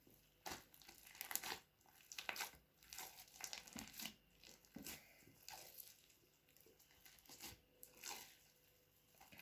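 Glossy slime being worked by hand, giving faint, irregular crackles and little pops.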